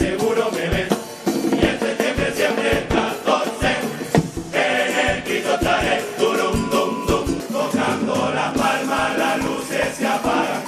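Carnival murga chorus singing together over a steady drum beat.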